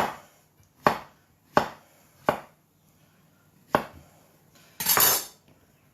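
Kitchen knife chopping soft zucchini on a cutting board: about five separate, unevenly spaced cuts, then a longer rustle near the end.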